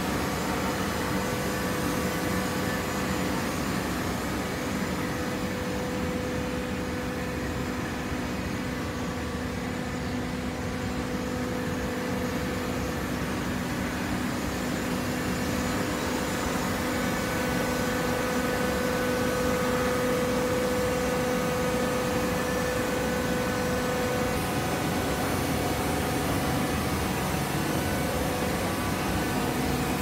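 Hydraulic horizontal auto-tie cardboard baler running, a steady machine drone with a constant hum and fainter higher whines, a little louder in the second half.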